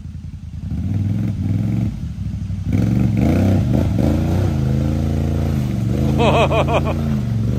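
Can-Am Outlander XMR ATV's V-twin engine revving hard under load as it pushes through deep mud, the revs climbing about a second in, held high, then dropping near the end.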